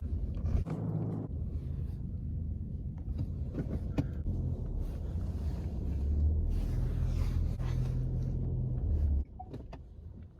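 Low, steady motor rumble that cuts off suddenly about nine seconds in.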